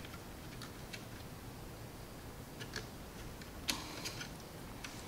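Scattered small plastic clicks and light cable rustling as wiring and a temperature-sensor connector are handled inside a PC case. The loudest click comes about two-thirds of the way through.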